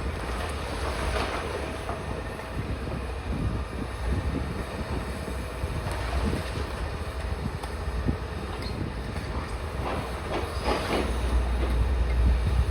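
Demolition machinery at work on a building: a steady low rumble with scattered crunching and clattering of falling rubble, heaviest about a second in and again near the end, with wind buffeting the microphone.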